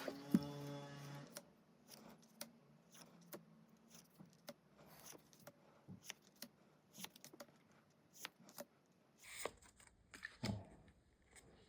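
Pokémon trading cards being handled: a string of light clicks and taps as the cards are flipped and slid over one another, with a couple of louder rustles near the end. A brief low pitched tone sounds right at the start.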